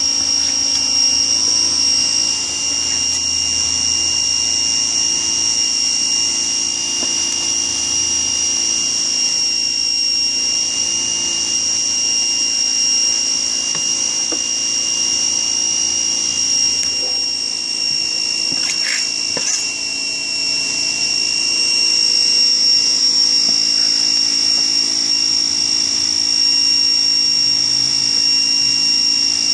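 A steady high-pitched machine whine over a low hum, unchanging throughout, with a couple of brief sharp knocks about 19 seconds in.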